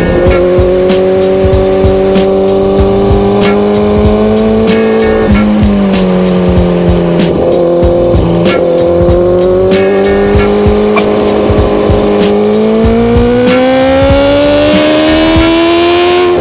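Kawasaki ZX-10R's inline-four engine heard onboard at high revs. Its pitch holds, dips briefly twice, then climbs steadily toward the end as the bike accelerates. Background music with a steady beat plays over it.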